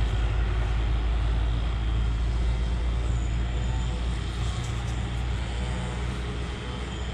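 Low rumble of a motor vehicle passing on the road, fading slowly away.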